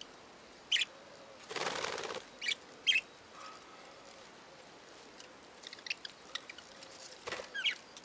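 Budgerigars giving short, scattered chirps, with a burst of wing flapping about a second and a half in and a shorter flutter near the end.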